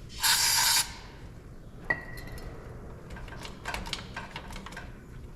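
A half-second burst of aerosol brake cleaner spraying, then a sharp metallic clink that rings briefly about two seconds in, followed by light clicks and rattles of parts being handled.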